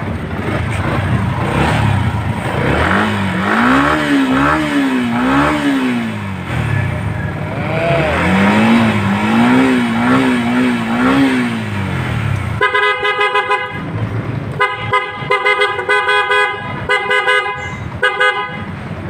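A motorcycle's electric horn is sounded in several short, steady blasts in the second half, tested after rewiring. Before that, a wavering tone rises and falls several times a second in two runs over a steady background noise.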